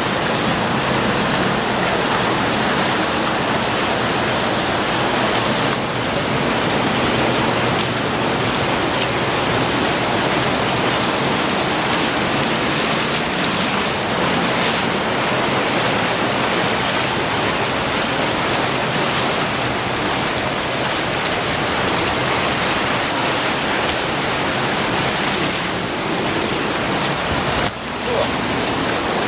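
Underground cave stream, a steady, loud rush of flowing and falling water.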